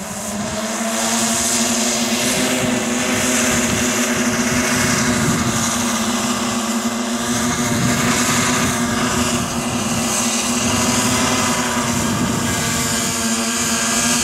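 A vehicle's engine running at a constant speed, a steady drone that swells up over the first second or two and then holds an even pitch.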